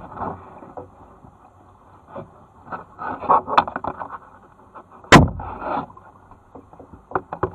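Kayak paddling: paddle strokes splashing and dripping, with a sharp knock about five seconds in, the loudest sound, as the paddle strikes the kayak, and a few lighter knocks near the end.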